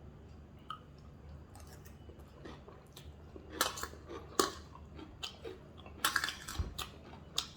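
A person chewing a mouthful of home-made chicken noodles, with short irregular crunching and clicking sounds, the loudest about halfway through and near the end.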